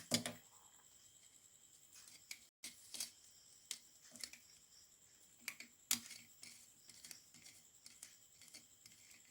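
Scattered small clicks and taps as electrical wires and a two-way switch's terminals are handled during wiring, irregular and a second or so apart.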